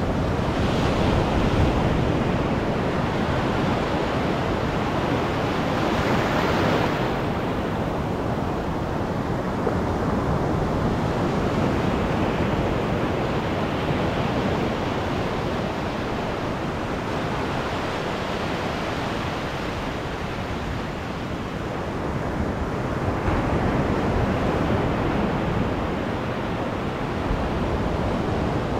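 Small ocean surf breaking close by and its foam washing up and back over the sand, a continuous wash that swells as each wave breaks, most strongly about six seconds in and again a few seconds before the end.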